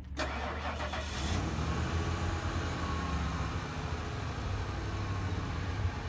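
2001 Ford E-350 van's engine starting: a burst of cranking for about the first second, then it catches and settles into a steady idle.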